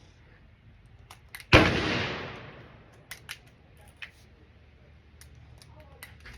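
A single loud gunshot about one and a half seconds in, its report echoing away over a second or so, with several faint sharp ticks scattered around it.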